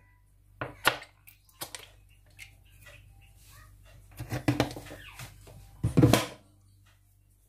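Kitchen handling noises: a few light taps and knocks, a small cluster about four seconds in, and a louder knock about six seconds in.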